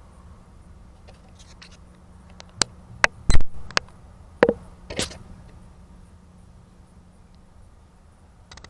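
About six sharp clicks and knocks within a couple of seconds, the loudest a heavy knock partway through: handling noise from tools and metal parts being picked up and set down. No grinder is running.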